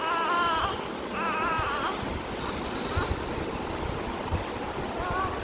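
A newborn baby's high, wavering squeaks: two longer ones near the start and a short one near the end. A steady rushing noise runs underneath.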